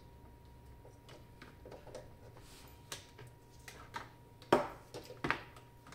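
Small clicks and knocks of hands handling the wiring and parts of an opened electrosurgical unit on a workbench, with two louder knocks about four and a half and five seconds in. A faint steady hum and a thin steady tone run underneath.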